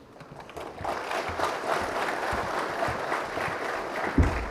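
Audience applauding, building up about a second in and holding steady, with a dull low thump near the end.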